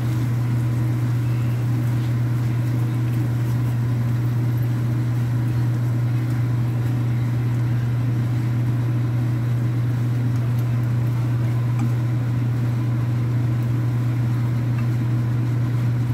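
Steady low hum of a kitchen fan, unchanging throughout, with faint stir-frying noise from dried anchovies and shishito peppers being tossed in a pan.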